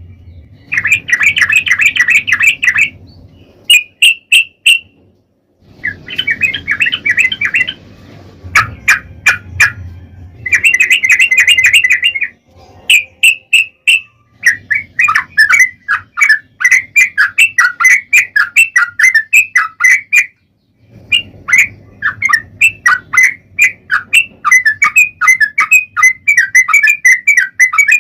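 Yellow-vented bulbul (trucukan) singing loudly in rapid, bubbling phrases of one to three seconds, repeated with short pauses and sharp chip notes between them. This is the fast, long-running "ropel" song used to lure other bulbuls into answering.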